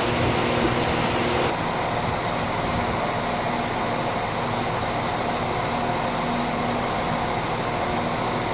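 Irish Rail 22000 Class InterCity diesel railcar standing at the platform, its underfloor engines and ventilation giving a steady hum with a faint low tone. The sound changes abruptly about a second and a half in.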